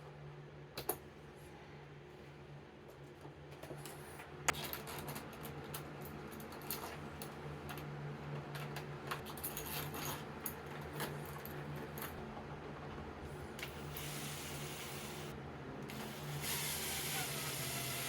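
Small metal lock hardware being handled: scattered clicks and light clinks, with a sharp click about a second in and another a little after four seconds, then denser clicking and rustling toward the end. A steady low hum runs underneath.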